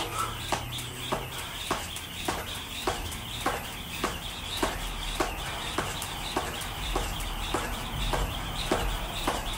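Jump rope skipping on a concrete floor: an even, sharp slap with each turn, a little under two a second.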